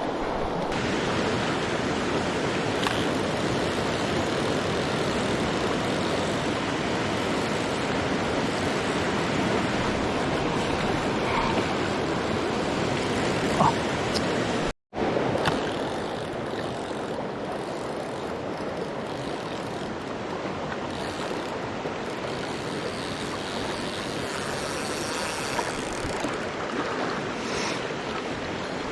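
Mountain stream water rushing steadily. About halfway through, the sound cuts out for an instant and comes back a little quieter.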